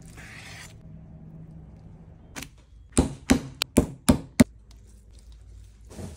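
A metal meat tenderizer mallet pounding raw skirt steak on a wooden cutting board: about six quick, sharp blows in under two seconds, a little after the middle. A brief hiss comes before them and another near the end.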